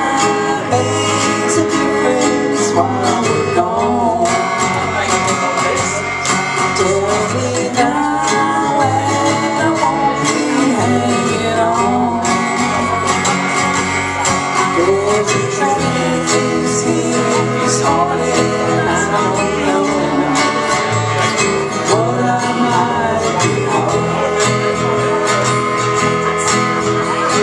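Live country-rock duo: strummed acoustic guitar and electric bass guitar with a woman singing the melody.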